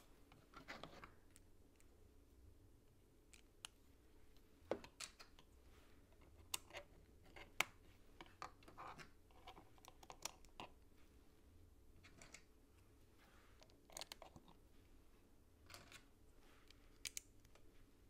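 Plastic LEGO plates being handled and pressed together: quiet, irregular clicks and taps, with a dozen or so sharper snaps spread through.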